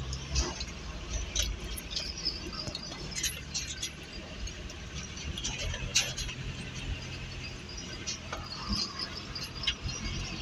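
Mazda T4100 mini truck's engine running with a steady low hum, heard from inside the cab while the truck moves, with scattered light rattles and clicks from the cab.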